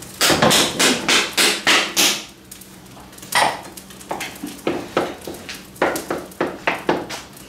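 Kitchen knife chopping on a plastic cutting board: a quick run of knocks, about four a second, for the first two seconds, then lighter, sparser taps.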